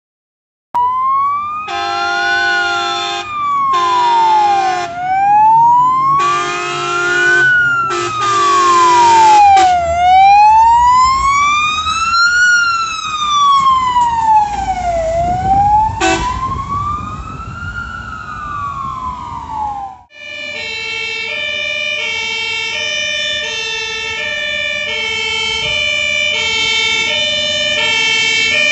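Fire engine siren wailing in slow rising-and-falling sweeps about every five seconds, with several blasts of multi-tone air horns in the first ten seconds and a sharp click about halfway. About two-thirds in it cuts to another fire engine's two-tone siren, alternating steadily between a high and a low note.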